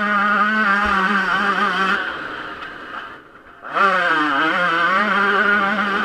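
Yamaha YZ125 two-stroke motocross engine running at high revs, heard from the rider. About two seconds in the throttle closes and the sound falls away; about a second and a half later it comes back on with a rising rev and holds high again.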